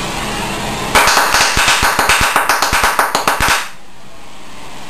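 HHO (hydrogen-oxygen) gas bubbles from a water-electrolysis cell being ignited at the surface of a jar: a rapid string of sharp pops and crackles, about two and a half seconds long, starting a second in and cutting off suddenly.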